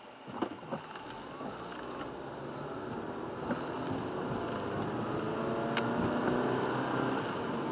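Car pulling away from a stop on a rain-soaked road, heard from inside the cabin. The engine note builds and rises as the car gathers speed, over the hiss of tyres on wet pavement. A couple of light knocks come about half a second in.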